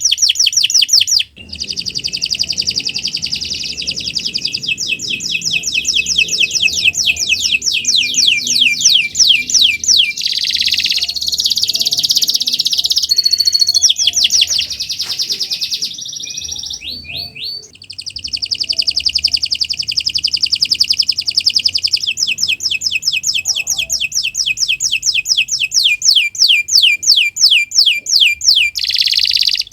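Domestic canary singing long, rapid trills of fast repeated high notes, with a few short breaks where the song changes to a different phrase.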